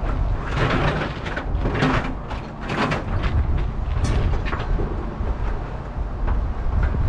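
Scrap metal clattering and scraping as it is shifted around in a pickup truck bed, loudest in the first few seconds, with a sharp clank about four seconds in, over a steady low rumble.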